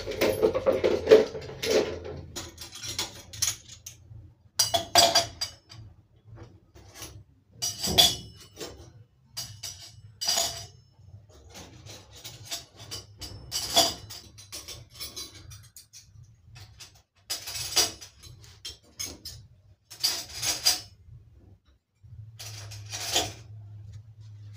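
Kitchenware clinking and clattering as items are handled and set down, with a sharp knock every two to four seconds over a faint low hum. Music plays for the first couple of seconds.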